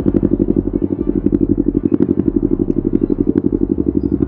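Motorcycle engine running steadily at low revs, an even, rapid pulsing of about a dozen beats a second that holds the same pitch throughout.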